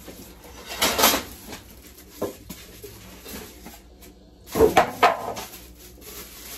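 Plastic wrapping and cardboard packing of a new slow cooker being handled as it is unboxed: two bursts of rustling and light knocking, about a second in and again near five seconds in.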